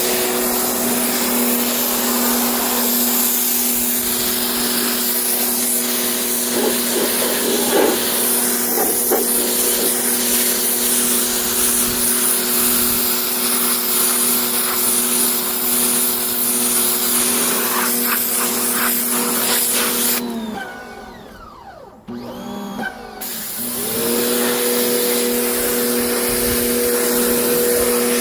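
Electric motor of a carpet-cleaning machine running steadily with a hum and a strong hiss. It shuts off about 20 seconds in, dropping in pitch as it spins down, then starts up again about three seconds later.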